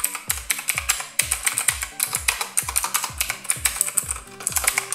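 Typing on the Motospeed CK108's blue mechanical switches: a quick, irregular run of very pronounced clicky keystrokes. Background music with a steady kick-drum beat runs underneath.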